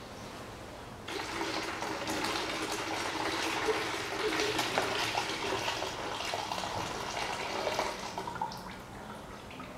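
Antifreeze pouring and splashing out of a removed plastic coolant expansion tank. It starts about a second in and thins out near the end.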